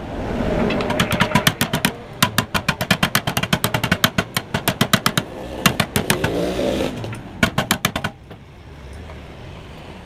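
Two-stroke motorcycle engine, a Yamaha RX-King, revved in bursts through its hollowed-out exhaust, with runs of sharp popping, about seven or eight pops a second. The popping stops after about eight seconds, leaving a lower steady sound.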